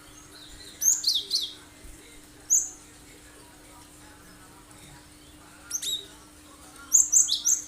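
Cinereous tit (gelatik batu) singing sharp, very high, quick-sweeping notes in short bursts, four times, the clipped 'tembakan' style of song.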